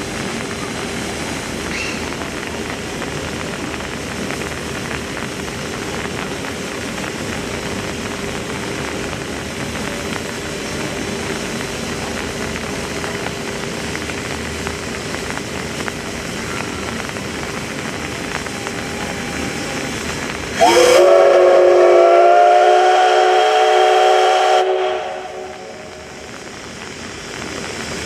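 Steam locomotive hissing steadily, then about 21 s in its steam whistle sounds one long, loud blast of about four seconds with several tones together, rising briefly as it starts and dying away at the end.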